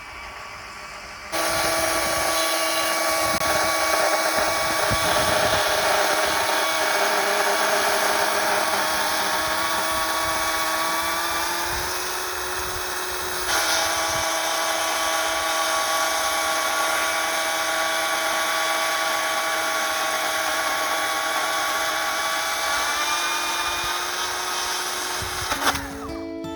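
A small power tool's motor running steadily at a constant whine, starting abruptly about a second in, shifting to a slightly different speed about halfway through and cutting off near the end.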